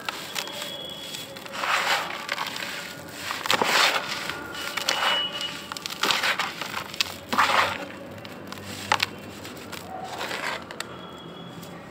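Hands crushing and crumbling dry, powdery grey blocks in a bucket of fine dust. There are five gritty crunching bursts about two seconds apart, with small crackling clicks of breaking fragments between them.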